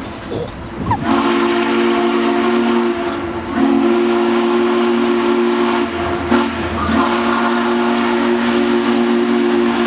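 Steam locomotive's chime whistle blowing a series of long blasts, several notes sounding together, with short breaks between them. The last blast is the longest and sags in pitch as it closes.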